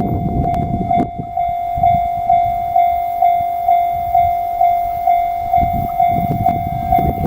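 Japanese level-crossing alarm ringing steadily at a little over two strikes a second, over the low rumble and wheel clicks of a passing freight train.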